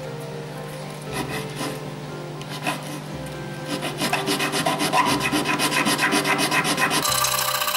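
Sandpaper rubbed by hand against the thin wooden frames of a model boat hull. A few light scrapes come first, then quick back-and-forth sanding strokes from about four seconds in.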